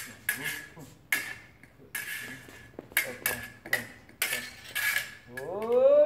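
Fencing blades clashing, about a dozen sharp metallic clicks in quick, irregular succession, each ringing briefly. Near the end a voice lets out a drawn-out call that rises and then falls in pitch.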